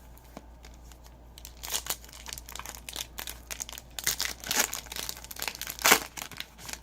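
Trading-card pack wrapper being torn open and crinkled in the hands: a run of crackling rustles, the loudest about six seconds in.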